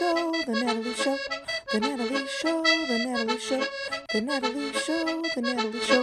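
Intro theme music: a bouncy tune of short, quickly changing notes in a repeating phrase.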